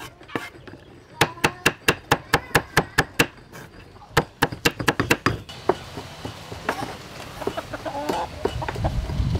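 Cleaver chopping long beans on a wooden chopping block, quick even strikes about five a second, stopping about five and a half seconds in. Chickens clucking near the end.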